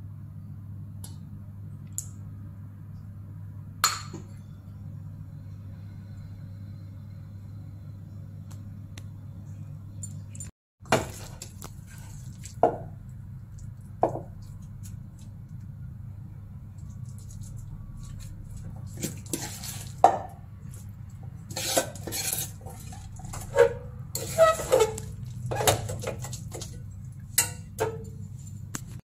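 A steel spoon clinking and scraping against a stainless-steel pan as a thick ragi flour mixture is stirred, with a few separate knocks of steel utensils earlier and a dense run of clatter in the last third. A steady low hum runs underneath.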